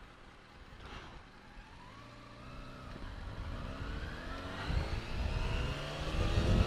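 Vehicle engine accelerating, its pitch rising slowly and steadily as it gets louder from about two seconds in, over a low road rumble.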